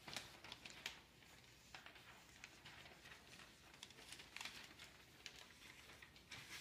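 Faint, scattered rustling and crinkling of newspaper and glossy ad circulars being handled and flapped.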